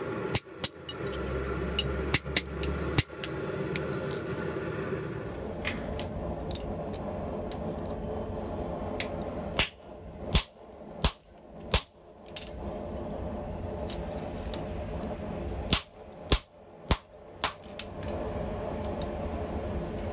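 Hand hammer blows on steel tooling over red-hot steel: a run of strikes on a hand-held punch driving into the hot hammer head, then two bursts of about five blows each on the top die of a guillotine tool clamped over the hot stock, with a steady hum underneath.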